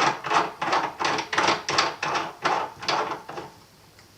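Metal threads of a RAM priming unit rasping as it is screwed into the top of an RCBS reloading press, about three scraping strokes a second. The rasping stops about three and a half seconds in.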